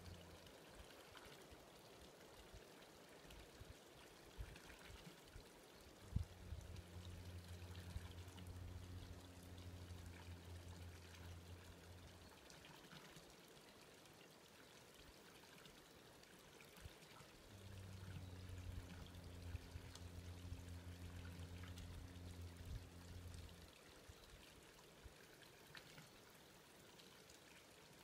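Quiet forest ambience: a faint even hiss with a few soft ticks. A low steady hum comes in twice, for about ten seconds and then about six, and a single sharp tap sounds about six seconds in.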